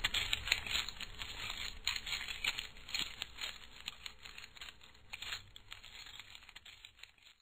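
A dense, irregular crackling noise made of many small clicks over a faint low hum. It fades out gradually and then cuts off abruptly right at the end.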